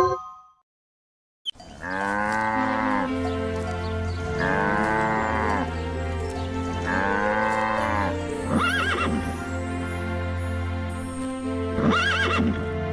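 A farm animal calling over steady background music: three long calls, each rising and falling in pitch, then two shorter, higher calls.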